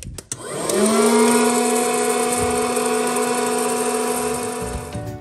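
Hot-air popcorn maker switched on: its fan motor spins up, rising in pitch within the first second, then runs with a steady hum over a rush of blown air, stopping just before the end.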